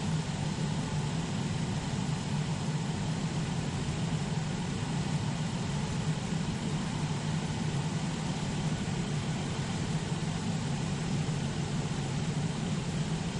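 2002 Chrysler Town & Country / Dodge Grand Caravan engine idling with the air conditioning switched on full: a constant low hum with an even hiss over it.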